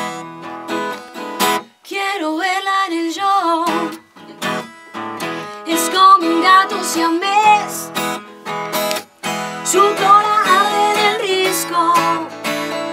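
Acoustic guitar strummed in a rock rhythm, with a singer's voice carrying the melody from about two seconds in.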